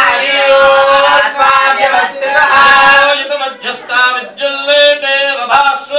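Male voice chanting Sanskrit mantras in a sung, melodic style, the notes held and flowing on with only short breaks.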